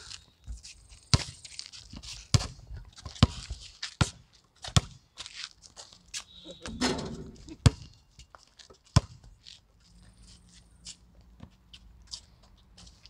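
Basketball bouncing on a concrete court: sharp single bounces about a second apart, spacing out in the second half, with shoes scuffing on the concrete between them.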